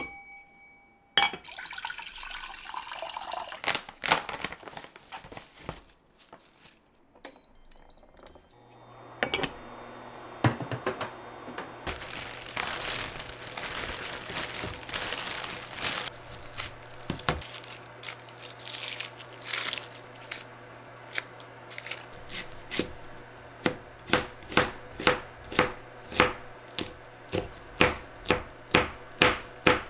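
Clatter of a pot lid over a saucepan early on, then a zip-top plastic bag of frozen dumplings crinkling and rustling for several seconds over a steady low hum. Near the end, a kitchen knife chops green chili peppers on a plastic cutting board in a steady rhythm of about two cuts a second.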